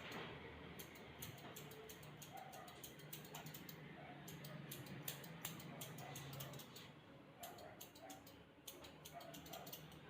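Quick irregular clicks and taps, several a second, over a faint low steady hum.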